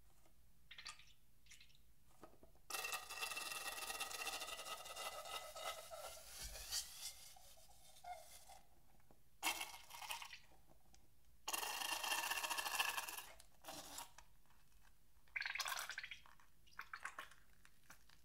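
White filling squirting and sputtering out of the cut tip of a squeezed rubber balloon. One long wet spurt of about six seconds with a pitched, reedy edge comes first, then several shorter squelching spurts as the balloon is squeezed again.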